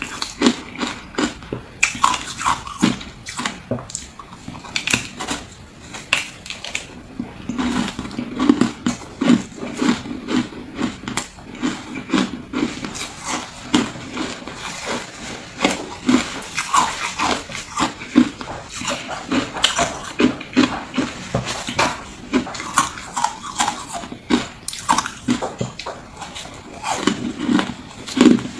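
Close-miked crunching and chewing of shaved ice chunks: a fast, irregular run of crisp crunches with wet mouth sounds.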